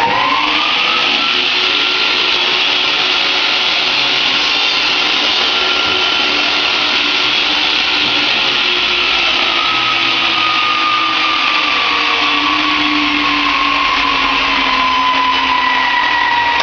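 Electric power tool motor running steadily after spinning up, with a high whine that slowly sags in pitch.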